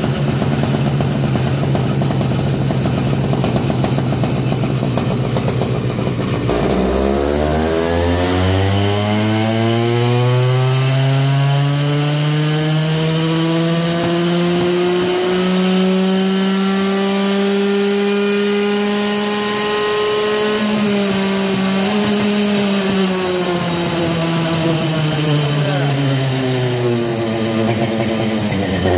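Single-cylinder two-stroke Avenger 85 engine with a CNC cylinder head, running a dyno pull. It idles, then about six seconds in it revs up in a long rising pull to near 12,000 RPM. It holds at the top, then winds back down to idle near the end.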